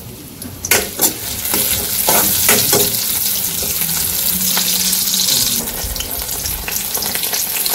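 Chopped onions frying in hot oil in an iron karahi. A sharp sizzle starts under a second in and grows louder, while a metal spoon scrapes and clicks against the pan as it stirs them.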